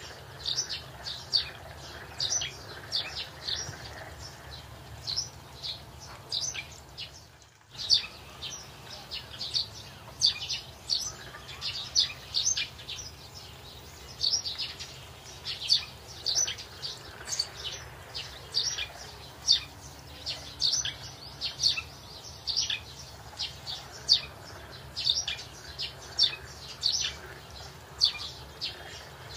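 Small birds chirping over and over, short high chirps coming one or two a second, over a low steady hum. The sound drops out briefly about seven seconds in.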